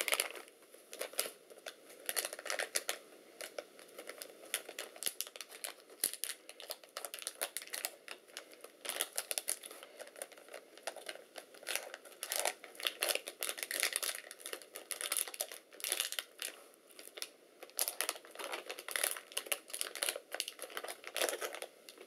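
Packaging of new laptop memory modules being handled and pulled open: irregular crackling and rustling in clusters.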